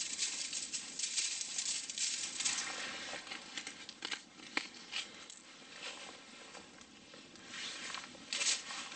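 A seasoning shaker shaken over sliced vegetables on a sheet of aluminium foil, with grains pattering and scratching on the foil. There are a few sharp ticks midway, then the foil crinkles as it is handled near the end.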